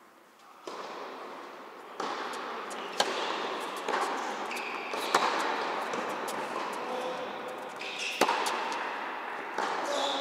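Tennis rally: rackets striking the ball, sharp pops a couple of seconds apart, with softer bounces between them, echoing in a large indoor tennis hall over a steady background hiss.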